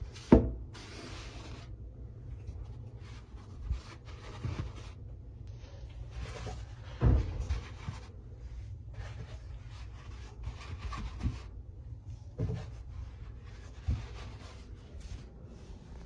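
Rustling and scraping handling sounds, with several soft knocks or thumps, the loudest about half a second in and about seven seconds in.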